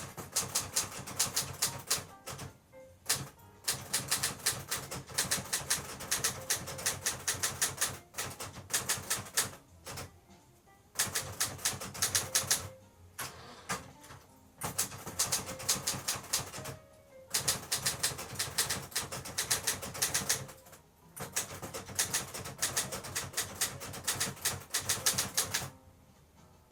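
Olivetti Linea 88 manual typewriter being typed on: quick runs of key strikes, broken by short pauses every few seconds.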